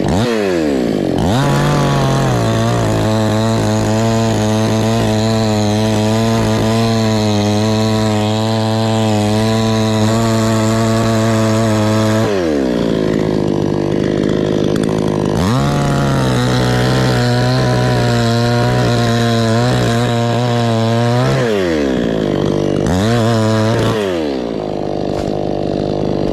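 Two-stroke chainsaw cutting through a coconut palm trunk. Its engine pitch drops and holds steady while the chain is loaded in the cut, twice, and races higher in between when the saw is out of the wood.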